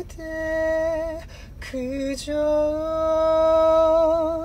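A man singing a slow Korean ballad solo, in a high, clear voice: a held note of about a second, a brief note, then a long note held with vibrato through the last two seconds.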